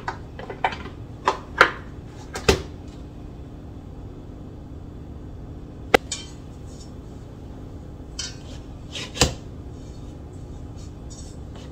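Stainless steel stand-mixer bowl clanking and knocking several times as it is lifted off the mixer base and set on the counter, with one sharp click a few seconds later. Near the end, hands working bread dough in the metal bowl make a scraping rustle, with another clank.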